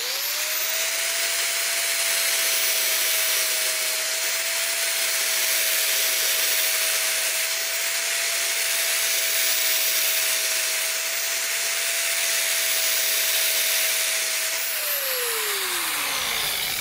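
Angle grinder with an 80-grit flap disc grinding the edge of a steel test piece: a steady motor whine under a loud grinding hiss. About fifteen seconds in, the grinder is switched off and the whine falls in pitch as it spins down.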